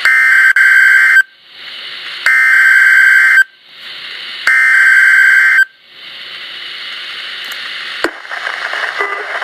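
NOAA Weather Radio sending the Emergency Alert System digital header (SAME), here for a Child Abduction Emergency: three loud, harsh, buzzing data bursts, each about a second long and a second apart, with radio static hissing between and after them. A sharp click comes near the end.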